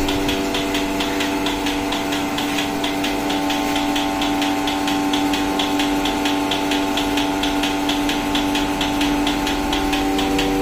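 Portable bucket milking machine running on a cow: the electric vacuum pump's steady hum, with the pulsator's fast, even ticking over it.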